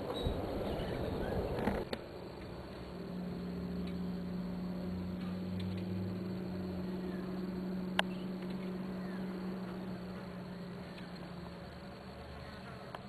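Rumbling, noisy rush for about two seconds, cut off abruptly, then a fly buzzing steadily for several seconds as a low, even hum. A single sharp click comes about eight seconds in.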